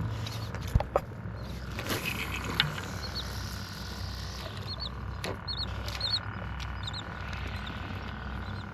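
Steady low rumble of wind and water around a small fishing boat, with a few sharp knocks and clicks in the first few seconds. Faint short high chirps repeat throughout.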